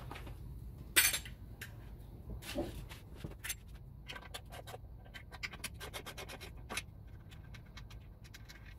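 Socket ratchet at work on the outboard's lower-unit bolts: a sharp metallic clack about a second in, then a long run of quick, light clicks as the ratchet is swung back and forth to back the bolts out.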